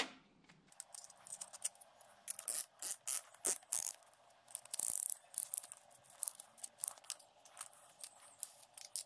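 Band-type piston ring compressor being handled and fitted around a piston: a run of light, irregular metallic clicks and rattles, with the clicking of the tool's ratchet mechanism.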